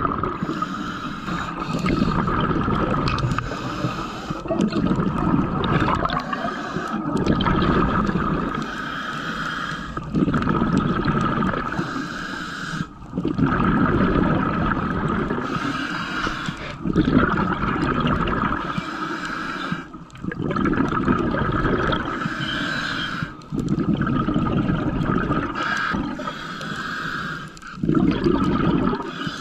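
Scuba diver breathing through a regulator underwater: hissing inhalations alternating every couple of seconds with gurgling bursts of exhaled bubbles.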